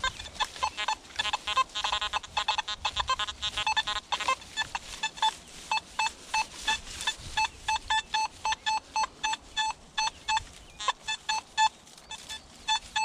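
Nokta Makro Simplex+ metal detector sounding short electronic target tones as its coil sweeps over a coin spill. A dense run of quick overlapping beeps at mixed pitches comes between about two and four seconds in, then single beeps about twice a second.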